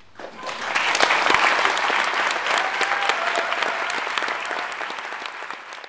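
Theatre audience applauding at the close of a play. The clapping swells within the first second and then slowly fades.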